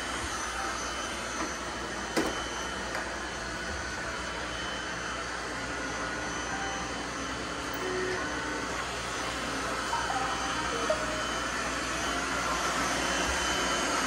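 Several robot vacuum cleaners (iRobot Roombas, a Eufy, a Shark and a Lubluelu) running at once on carpeted stair treads, a steady whirring hum of motors and brushes. A single sharp knock about two seconds in.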